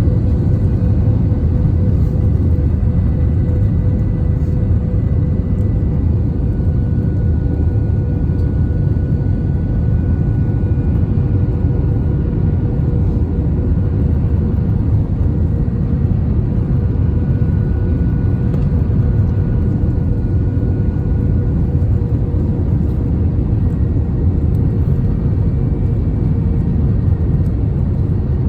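Airbus A321 airliner on approach to landing: a steady, loud rumble of engines and airflow, with a faint steady hum above it.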